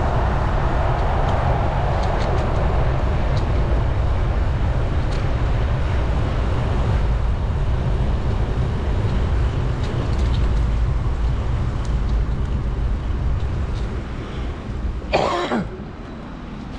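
Wind rushing over a bike-mounted camera's microphone while riding a road bike, with road traffic around; it eases off about 14 s in. A short, loud sound with a falling pitch comes about 15 s in.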